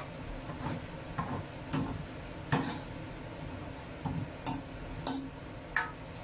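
Metal spatula scraping and clinking against a wok while stir-frying sweet potato jelly cubes: about nine quick, irregular strokes, roughly one every half second, over a steady background hiss.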